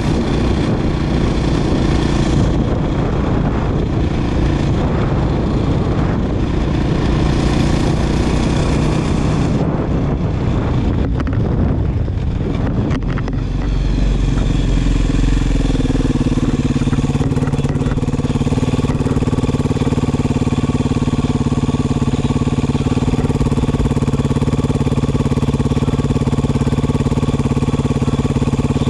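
Beta 500 RR single-cylinder four-stroke dirt bike engine running under the rider, with noise over it for the first half. About halfway through it drops off briefly, then the pitch rises and it settles into a steady, even note.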